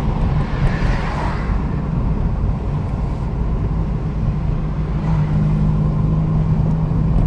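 Car driving, heard from inside the cabin: a steady low rumble of engine and tyre noise. There is a brief rise in hiss about a second in, and the engine's steady hum grows stronger from about five seconds in.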